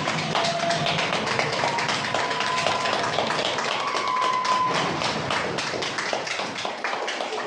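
Many people clapping their hands: a dense, irregular patter of claps that carries on steadily, with a few drawn-out voice-like tones over it.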